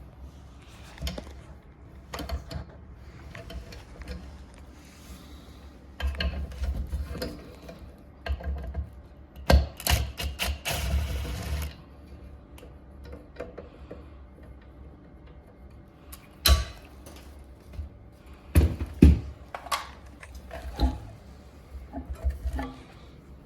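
Irregular clicks and knocks of tools and parts being handled, with a short hissing rush about ten seconds in.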